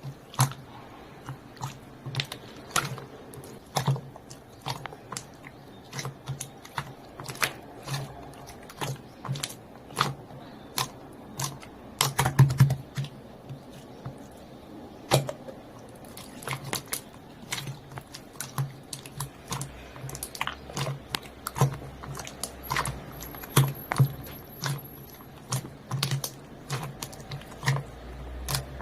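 Green slime squeezed and pressed by hand, giving off a run of irregular sticky clicks and pops, several a second, some louder than others.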